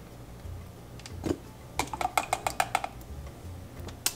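Light clicks and taps of a plastic squeeze bottle and measuring spoon as mustard is squeezed out: one click about a second in, then a quick run of about eight clicks, and one more sharp click near the end.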